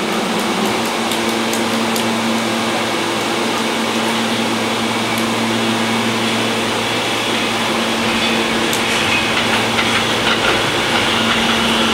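An R160 subway train approaching through the tunnel: a steady rumble and hum that slowly grows louder. Clicks and high squealing tones from the wheels come in near the end as it nears the platform.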